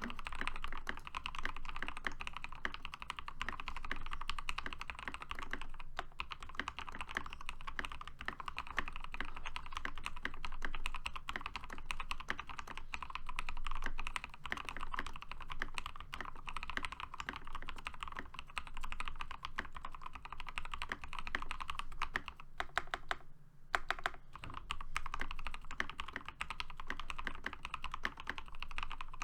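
Continuous fast typing on a Keychron K8 mechanical keyboard fitted with hand-lubed Momoka Frog switches, PBT doubleshot keycaps, lubed stabilisers and a silicone-poured case, a dense stream of key clacks. There is a brief lull about 23 seconds in.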